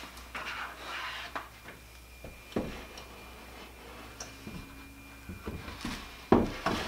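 Wooden drill bit organizer cabinet being set onto a wooden French cleat and adjusted by hand: scattered wood-on-wood knocks and rubbing, with the loudest knock near the end.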